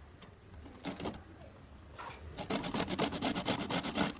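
Cauliflower florets grated on the finest side of a stainless-steel box grater: rasping scrapes, a few about a second in, then a fast, louder run of strokes through the second half.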